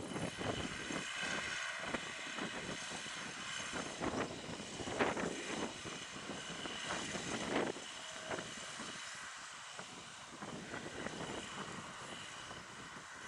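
Case IH Puma 200 CVX tractor's six-cylinder diesel engine running steadily under heavy load while pulling a deep plough, with a steady whine over the engine hum. It grows fainter in the second half.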